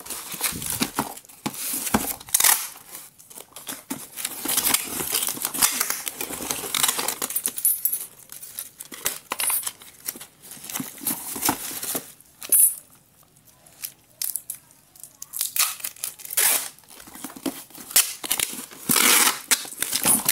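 Cardboard box being handled and sealed with packing tape: the tape rips off its roll in scratchy bursts, mixed with cardboard scraping and rustling, with a short lull past the middle.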